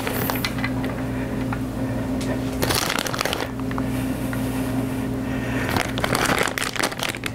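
Plastic bag of shredded mozzarella and provolone rustling and crinkling as the cheese is shaken out and sprinkled over stuffed shells in a metal baking pan. It comes in bursts, busiest near the end, over a steady low hum.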